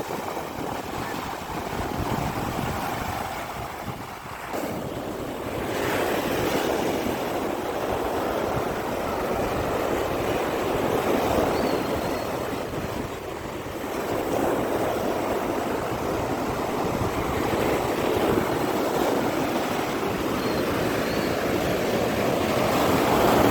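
Sea waves breaking and washing up on the shore, the surf swelling and easing every few seconds.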